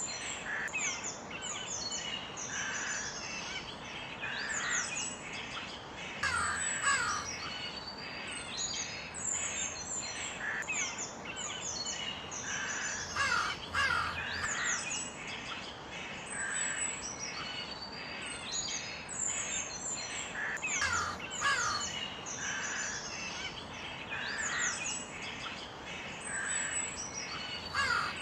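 Crows cawing again and again over a constant chatter of smaller birds chirping.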